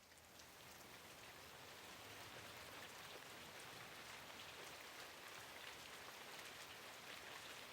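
Steady, soft rain, an even hiss of falling drops with individual drop patters, fading in at the very start.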